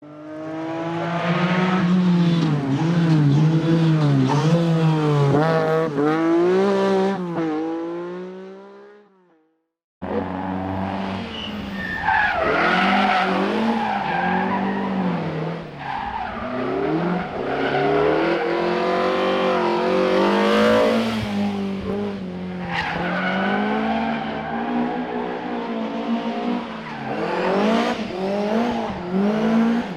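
Historic rally car engine at full throttle, its pitch rising and falling through gear changes, then fading away. After a sudden cut about ten seconds in, another rally car revs hard with tyres squealing.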